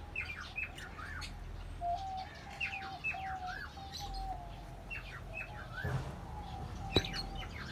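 Small cage birds in an aviary chirping: many short, quick falling chirps, with a run of level, evenly repeated notes about two seconds in. A sharp click near the end.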